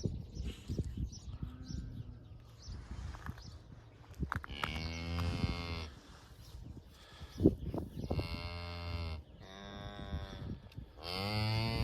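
A cow lowing: three or four low-pitched moos of about a second each, the first about four seconds in and the last running on past the end. Soft knocks and rustling come before them, with one sharp knock between the moos.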